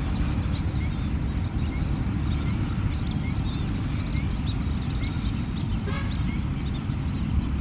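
Wetland bird ambience: many short, high chirping calls scattered throughout, with a brief rattling call about six seconds in, over a steady low rumble.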